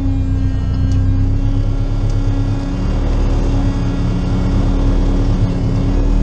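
Renault Mégane 3 RS's 2.0-litre turbocharged four-cylinder engine idling steadily while stationary, heard from inside the stripped cabin.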